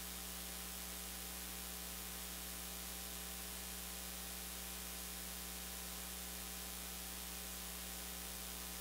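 Steady electrical mains hum with a constant hiss in the audio feed, unchanging throughout.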